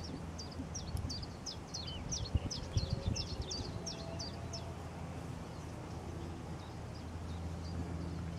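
A small songbird singing: a run of about fifteen short, high notes, three or four a second, which stops a little past halfway through. A low steady hum runs underneath.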